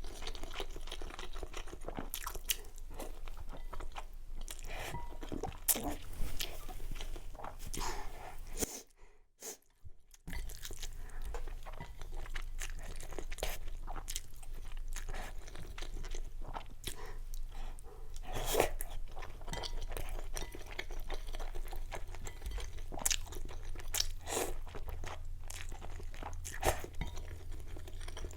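Close-miked eating: a person chewing and crunching food in irregular, crackly bites, with a brief drop to near silence about nine seconds in.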